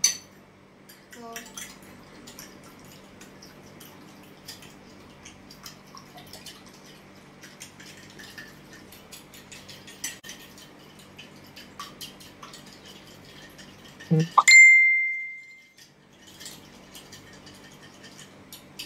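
Metal fork clicking and scraping against a glass bowl while beating egg and milk. About three-quarters of the way through, one loud bell-like ding rings for about a second.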